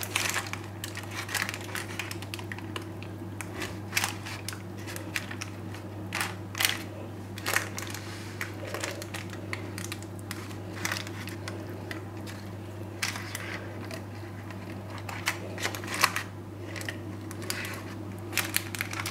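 Irregular soft rustles, taps and crinkles of hands pressing and spreading tart dough into a tart tin lined with baking paper, a few louder knocks among them, over a steady low hum.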